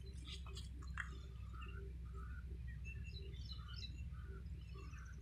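Birds chirping faintly in short, scattered calls over a steady low rumble of background noise.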